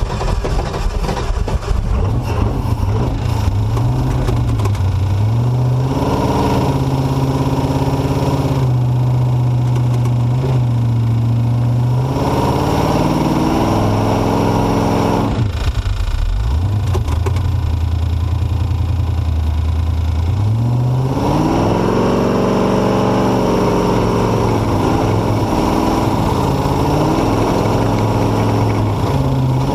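Truck engine running loudly under load, its pitch rising and falling again and again as it is revved to push through deep silt on a shredded front tire.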